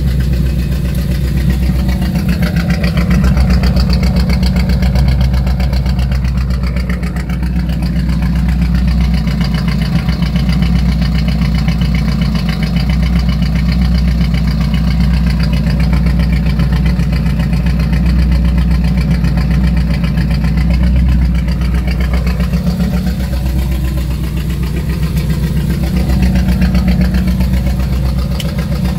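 1985 Chevrolet Monte Carlo SS's V8 engine idling steadily, a loud low exhaust rumble with an even pulse.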